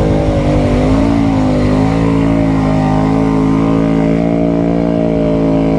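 Can-Am Outlander 700 ATV engine running at a steady throttle, its revs wavering slightly in the first couple of seconds and then holding even.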